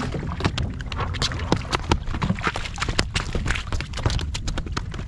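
A freshly landed halibut flopping and slapping on a wet plastic kayak deck: an irregular run of sharp wet knocks and slaps, several a second, over a low wind rumble.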